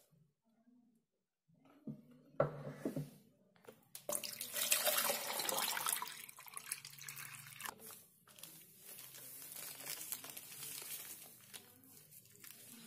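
Liquid pouring and splashing into a plastic mug of water, loudest for a couple of seconds about 4 s in, with the crinkle of a plastic bag as its contents are emptied in.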